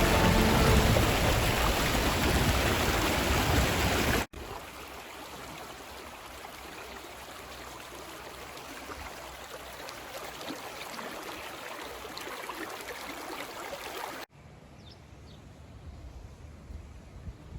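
Creek water rushing over rocks, heard in three shots joined by sudden cuts. It is loudest for the first four seconds, then a steadier, softer flow, and softest in the last few seconds.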